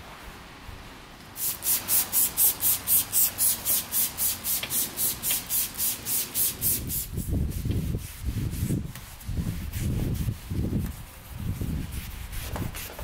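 Trigger spray bottle pumped rapidly, about four quick squirts a second for some five seconds, misting cleaner onto a car's interior door panel. Then steady back-and-forth rubbing strokes as the panel is scrubbed by hand.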